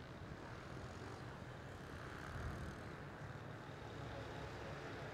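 Faint, steady engine note of a Honda CB 300R race motorcycle, a single-cylinder bike, running at speed on the track, heard as a distant low hum.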